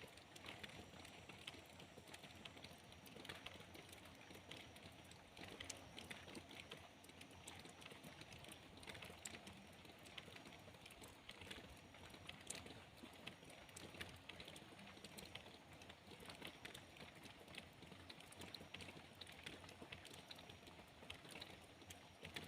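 Faint steady rain, many small drops ticking irregularly over a soft hiss.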